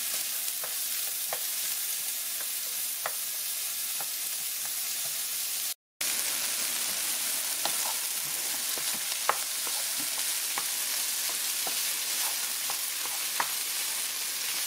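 Diced potatoes, onion and serrano chile sizzling steadily in hot oil in a nonstick frying pan, with scattered light clicks of a wooden spoon stirring against the pan. The sound cuts out for a moment just before six seconds in.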